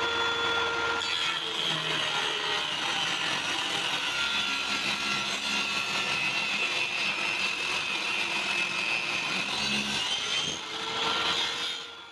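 Table saw ripping a thin wooden strip. The saw runs free with a steady note, then the pitch sags and a noisy cutting sound takes over for about nine seconds while the blade is in the wood. Near the end the note rises back to free-running as the strip clears, and the sound stops abruptly.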